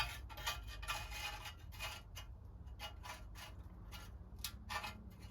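A string of faint, irregular clicks and light taps, a few a second, over a low background hum.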